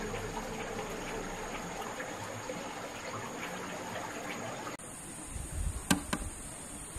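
A steady background hiss, then after an abrupt change two sharp clacks of bricks being knocked together, about a fifth of a second apart, with low thuds around them as bricks are set down.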